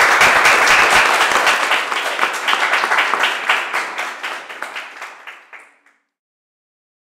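Small audience applauding, the claps thinning out and dying away, ending about six seconds in.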